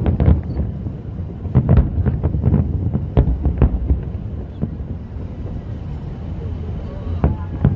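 Aerial fireworks shells bursting: a rapid string of booms over a low rumble, thinning to a few scattered bangs after about four seconds.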